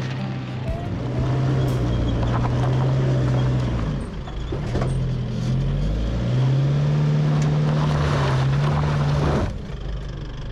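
A four-wheel drive's engine working under load as it tows an off-road caravan over rocks, its revs rising about six seconds in and dropping off near the end. Tyres crunch and knock over loose stones and gravel throughout.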